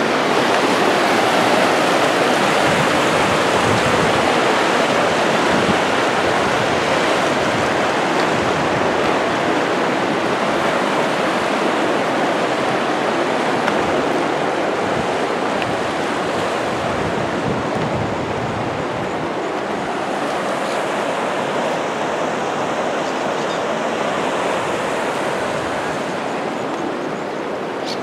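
Rushing water of a waterfall and its rapids: a steady, even rush that eases a little in the second half.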